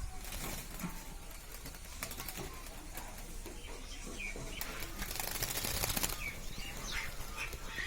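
Bulbul fluttering and shaking its wings after a bath in a bowl of water, in a dense flurry through the middle, with a few short chirps in the second half.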